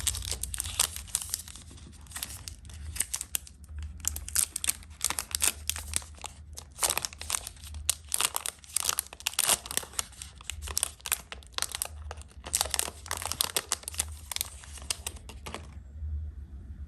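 Plastic candy and snack wrappers crinkling and being torn open by hand, a dense run of crackles that stops about a second before the end, over a low steady hum.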